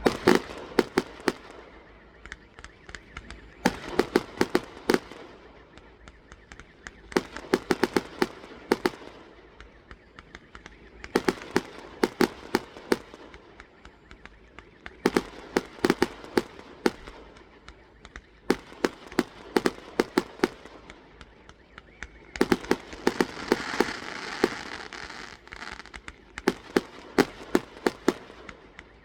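Fireworks going off in repeated clusters of rapid, sharp cracks, a new cluster about every three to four seconds, with a hissing rush underneath one cluster late on.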